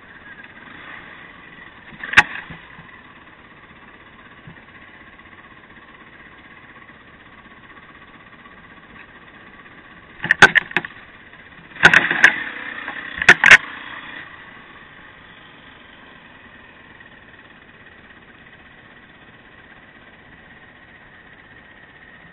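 Steady rushing noise from a camera carried by a rider moving fast down a rough woodland dirt trail. Sharp knocks and rattles come once about two seconds in and several more between about ten and fourteen seconds, as the ride jolts over the ground.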